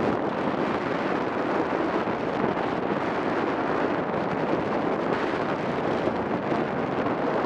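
Steady rush of airflow buffeting the microphone of a paraglider pilot's camera in flight.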